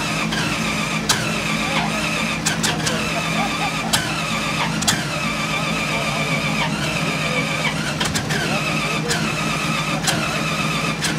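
Streamliner C-16's inline 16-cylinder engine, built from two Buick straight-eights joined end to end, idling loudly and given quick throttle blips about once a second. Each blip jumps up suddenly and falls back to idle.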